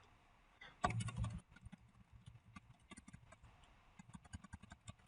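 Faint typing on a computer keyboard: a run of light, irregular key clicks. A brief murmur of voice sounds about a second in.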